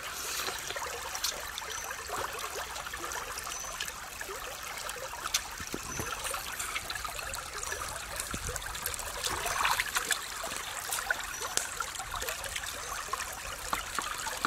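Shallow rocky stream trickling and burbling steadily, with many small splashy ticks.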